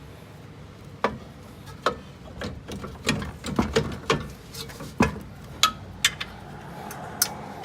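Steel bolts being worked into the mounting holes of a replacement rear strut assembly: a string of irregular sharp metallic clicks and knocks, starting about a second in.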